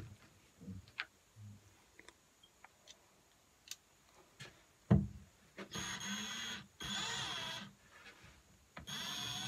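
Cordless drill running in three short bursts, its motor whine wavering in pitch as the trigger is worked. It is pressing a blunt-ended screw that makes a hole but does not bite. A few light knocks come first, and a loud thump about five seconds in.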